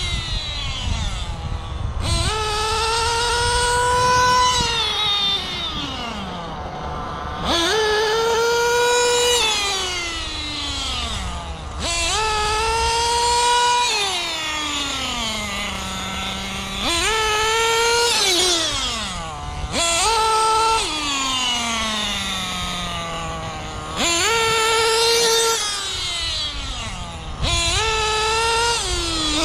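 Kyosho Inferno Neo 3.0 1/8 nitro buggy's small glow-fuel engine being run hard in repeated bursts: each time it climbs quickly to a high, held full-throttle whine, then sweeps down to a low idle as the throttle is released, about seven times.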